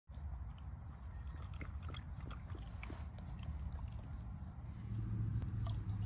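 A dog's small sounds at close range, scattered short clicks and snuffles as it moves about on its leash, over a steady low rumble and a steady high-pitched hum. About five seconds in the low sound gets louder as water starts pouring into a collapsible silicone dog bowl.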